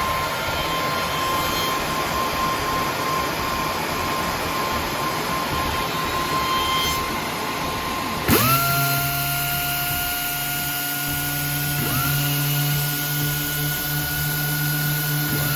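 Industrial sanding machine running while solid-surface (Corian) parts are fed through to sand their edges. About eight seconds in, a motor spins up with a quickly rising whine that levels off into a steady hum, and another motor spins up the same way about four seconds later.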